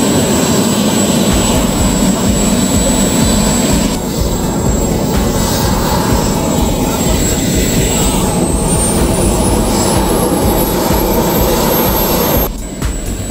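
Turbine engines of scale RC J-10 model jets running at flight power: a steady jet roar with a high turbine whine. Over the last few seconds a second whine climbs in pitch, then the roar drops off suddenly near the end.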